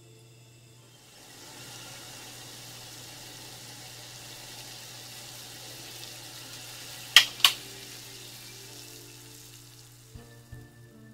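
A pot of water bubbling at a rolling boil on a gas burner, rising from about a second in. About seven seconds in come two sharp clicks, the burner knob being turned off, and the bubbling then dies down. Music comes in near the end.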